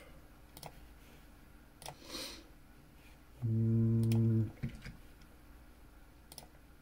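Scattered computer mouse clicks and keyboard taps, a second or more apart. A man's short, flat hum lasts about a second midway and is the loudest sound.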